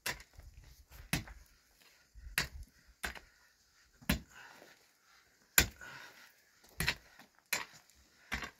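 Pick repeatedly striking into soil while digging, about nine sharp, irregular blows roughly once a second, one of them louder a little past halfway.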